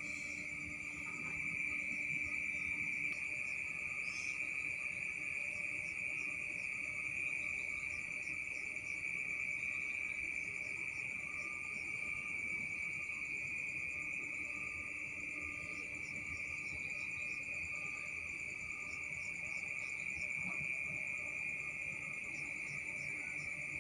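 Insects trilling in a steady, unbroken high-pitched drone, typical of crickets.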